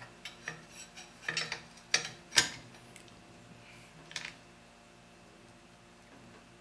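Sharp metallic clicks and clinks of a wrench tightening the buffer tube of a rifle stock, several irregular strikes in the first half, the loudest about two and a half seconds in, and one more about four seconds in.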